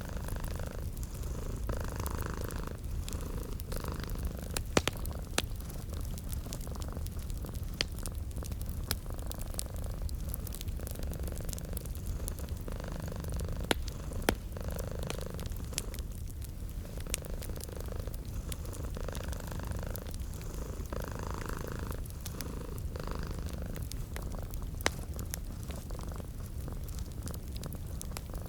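Domestic cat purring steadily in a low, rhythmic rumble, mixed with the sharp crackles and pops of a wood fire.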